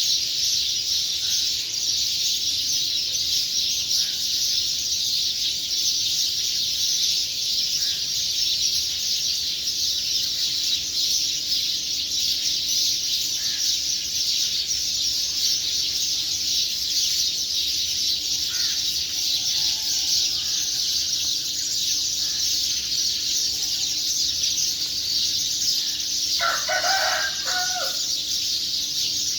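Early-morning bird chorus: a dense, steady, high-pitched din of chirping, with a rooster crowing once near the end.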